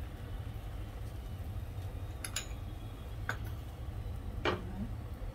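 A steel spoon clinking lightly against dishes: three short clicks in the second half, the first one doubled, over a steady low hum.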